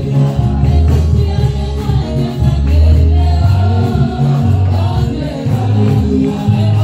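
Gospel praise-and-worship music: a group of voices singing over a steady, prominent bass line.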